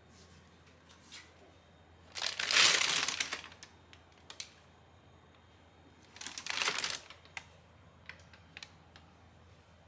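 Thin white plastic bag rustling and crinkling as it is handled, in two bursts about two seconds in and about six seconds in, the first the louder and longer, with a few light clicks between.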